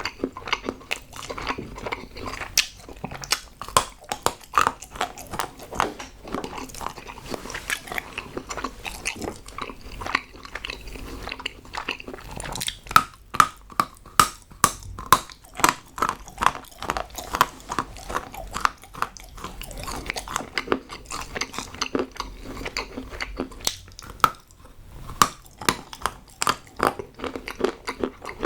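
Hard chocolate being bitten and chewed close to the microphone, with a steady run of crisp snaps and crunches.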